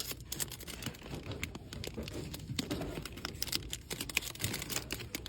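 Plastic packaging being handled, crinkling and crackling irregularly.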